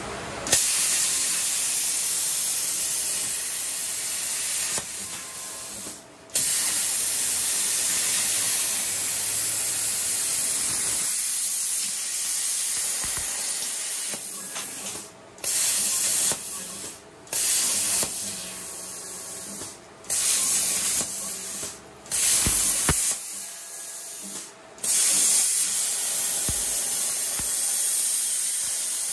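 CNC plasma cutter's arc hissing steadily as the torch cuts steel sheet. The arc stops for short breaks about six times and restarts between cut segments.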